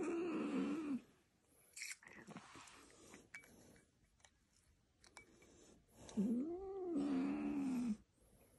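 Ginger cat giving two long, drawn-out yowls, one ending about a second in and another starting about six seconds in. It is a sick, poisoned cat protesting while a hand holds its jaw open to make it vomit.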